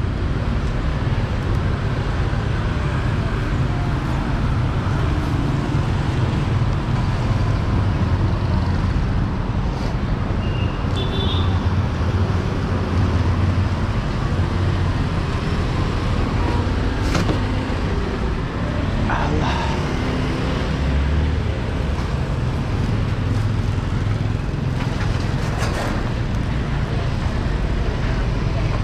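Street traffic: motor vehicles running and passing in a steady low rumble, with a few short sharp sounds.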